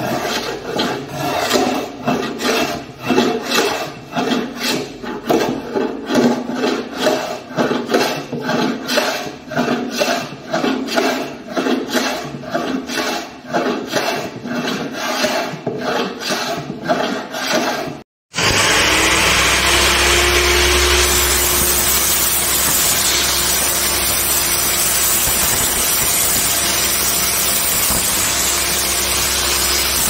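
Small hand plane shaving the top edge of a plywood drawer side in rhythmic back-and-forth strokes, about two a second, trimming the drawer down to size. About 18 seconds in it cuts to the steady running of a table saw.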